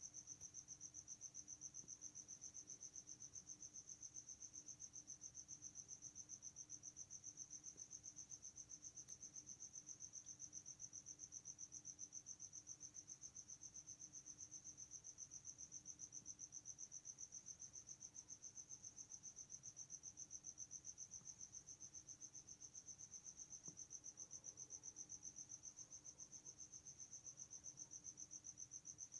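Faint cricket chirping, one high pulsing trill repeating evenly without a break.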